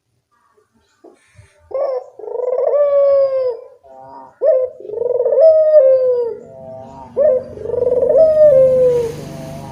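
Barbary doves (burung puter) cooing loudly: three phrases of coos after a quiet first second, each coo a quick rise followed by a long falling note.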